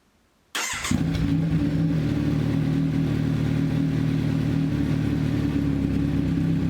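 Kawasaki Z900 inline-four fitted with SC Project steel headers and an SC Project silencer with its dB killer in place. The engine starts about half a second in and settles into a loud, steady idle.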